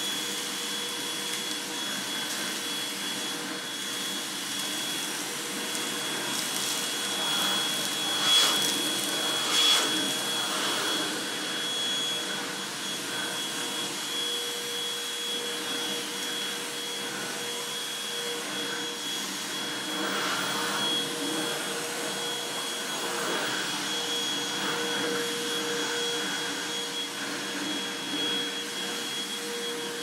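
Cecotec Conga Popstar 4070 H2O cordless handheld vacuum running without its nozzle, with a steady high whine, sucking up birdseed, instant coffee and chunks of textured soy. Two brief louder clatters come about eight and ten seconds in.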